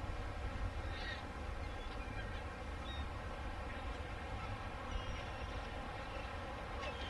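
Outdoor coastal ambience: a steady low rumble under a constant droning hum, with a few faint, brief bird chirps.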